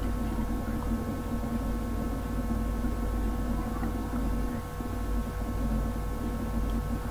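Steady electrical hum, a few fixed tones over a low rumble, that does not change: background noise picked up by the recording microphone.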